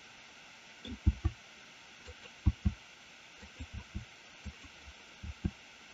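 Faint, dull clicks from a computer keyboard and mouse, often in quick pairs, about a dozen spread unevenly. They come from keys being pressed and mouse buttons clicked while working.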